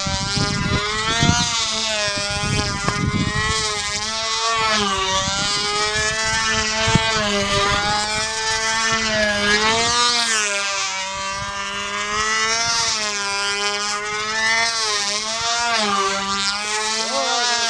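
Two-stroke model airplane engine of a Guillotine control-line combat plane running flat out as the plane circles, its pitch rising and falling about every two and a half seconds with each lap. It runs steadily on a new fuel mix that suits it better. Wind buffets the microphone in the first few seconds.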